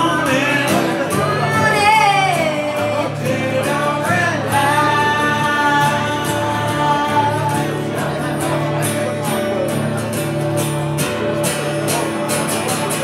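Live acoustic guitar with a man singing. His voice wavers early on, holds one long note a few seconds in, then drops out, and the strummed guitar carries on alone through the second half.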